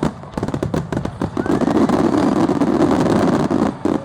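Finale barrage of aerial firework shells: a dense, rapid run of bangs and crackling over a continuous rumble, with a short rising whistle about a second and a half in.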